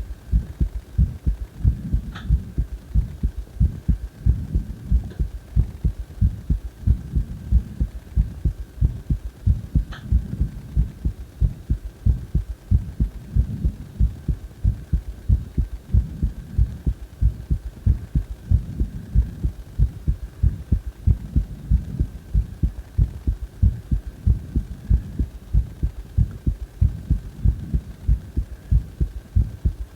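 A person's heartbeat: low thumps in a quick, regular rhythm, with a faint steady high whine underneath.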